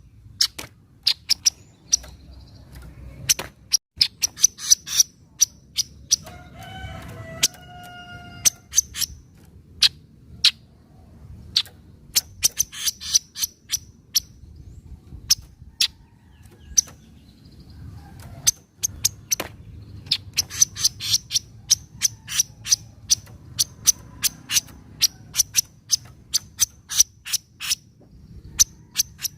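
Kaso-kaso bird giving its 'nyecret' chatter: runs of rapid, dry, sharp notes repeated in bursts. A lower, drawn-out call is heard briefly about seven seconds in.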